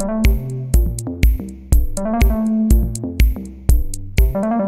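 Electronic background music: a steady drum-machine beat of about two kicks a second with sharp hi-hat ticks under a stepping synthesizer melody.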